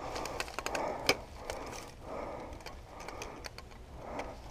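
Handling noise from a light camera tripod being carried and adjusted: a string of small clicks and knocks, one sharper click about a second in, over rustling.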